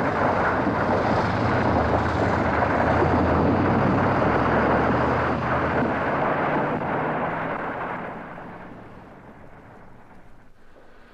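Demolition debris (bricks, wood and plaster) crashing down in a long, dense rumble with a few sharp impacts, dying away over the last few seconds.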